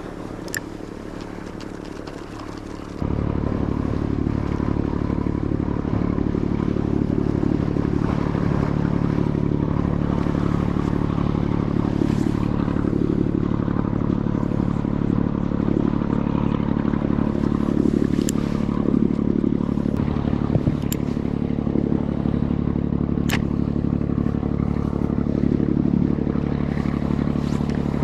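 Steady engine drone that starts abruptly about three seconds in and holds an even pitch, with a few sharp clicks over it.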